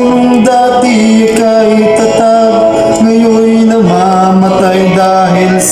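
A man singing a slow folk melody into a karaoke microphone over a backing track, holding long notes that step down in pitch.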